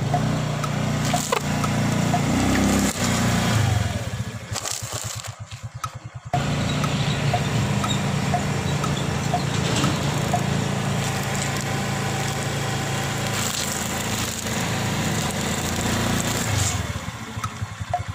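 Motor scooter engine running at low speed, its pitch rising then falling in the first few seconds and then running steadily, as the front tyre rolls over and crushes snack packets with some crackling and crunching.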